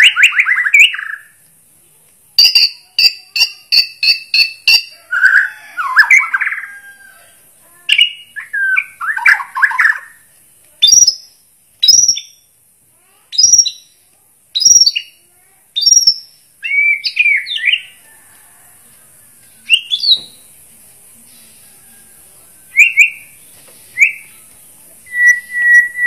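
White-rumped shama of the Bornean race singing in full voice: a varied run of loud whistled and warbled phrases with short pauses between them. Near the start comes a fast series of quick repeated two-tone notes, and through the middle a string of short clear whistles about one a second.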